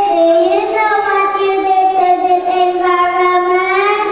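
Young children singing a slow melody, holding long notes.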